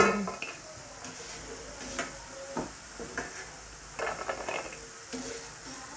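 Strips of dough frying in hot oil in a steel kadai, a faint sizzle, with a few light clinks and scrapes of a steel plate against the pan as the pieces are slid in.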